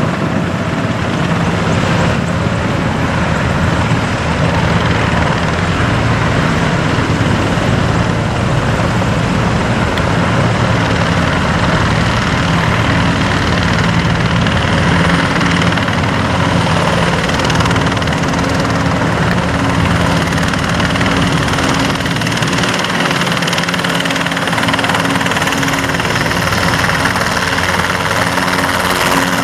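A large group of military helicopters hover-taxiing low in formation, with blue Enstrom TH-480B trainers in front: a steady, unbroken blend of rotor thrum and turbine engine noise.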